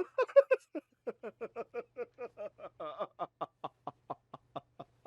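A person laughing: a loud burst in the first second, then a long run of short, evenly spaced 'ha' pulses, about five a second.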